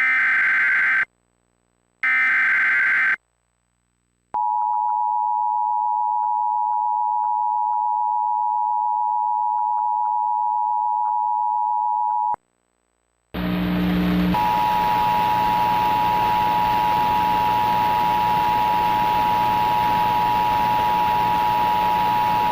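Emergency Alert System tones for a tornado warning: two short bursts of the warbling digital SAME header, then the steady two-tone EAS attention signal held for about eight seconds. After a second's break a hiss with a low hum comes in, and the attention signal sounds again for about eight more seconds.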